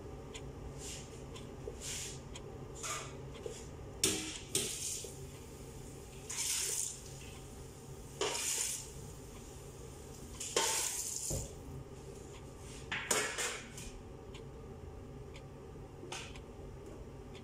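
Metal kitchen utensils clinking and scraping against pots and dishes in short bursts, one every second or two, over a low steady hum.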